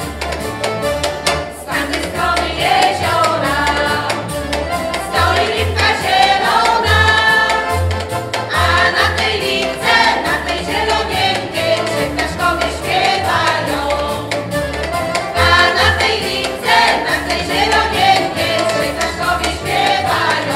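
Polish folk ensemble singing a song in chorus, women's and men's voices together, accompanied by accordion and a double bass playing a steady, regular bass pulse.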